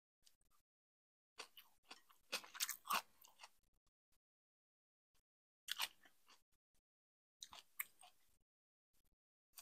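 Close-miked crunching and chewing of crisp vegetables, shredded cabbage and cilantro, in three bursts with silent gaps between. The first and longest burst lasts about two seconds, and two shorter ones come later.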